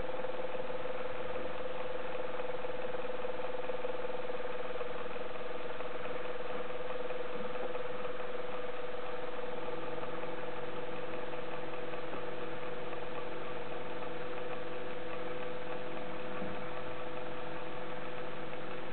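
Small electric motor of a motorized camera slider running steadily: an even mechanical hum with a constant whine, joined about halfway through by a lower set of steady tones.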